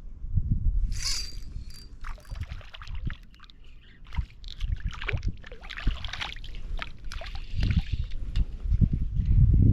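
Water splashing and sloshing at a small boat, with a short burst about a second in and a longer spell of splashing from about five to eight seconds in.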